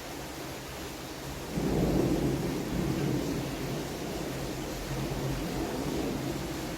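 Steady rain hiss with a low rumble of thunder that rises suddenly about a second and a half in and rolls on, slowly easing.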